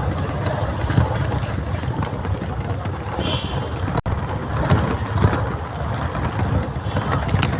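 Busy city street traffic: a steady wash of vehicle noise, with a momentary break about four seconds in.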